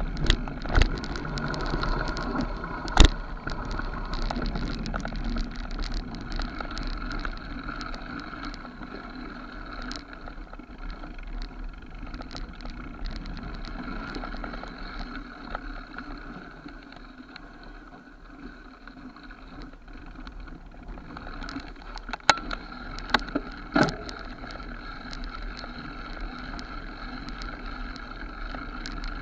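Mountain bike riding down a dirt forest trail: a steady rolling rumble of tyres on earth and roots, with the bike and camera mount rattling. A few sharp knocks come from hits on bumps, the loudest about three seconds in and a cluster a little past twenty seconds.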